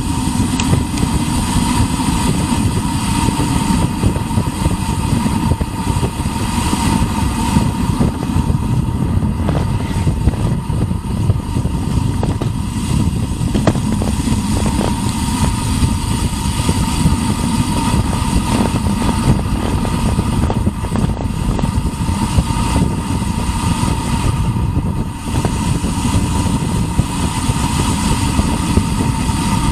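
Loud wind rushing over an action camera's microphone on a bicycle coasting fast downhill: a steady, deep, buffeting rumble with a thin steady whine running above it.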